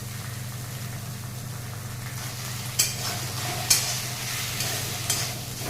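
Crumbled paneer with onions and ginger-garlic paste frying in mustard oil in a kadai, a steady sizzle that grows louder about two seconds in as a spatula stirs it, scraping the pan three times. A steady low hum runs underneath.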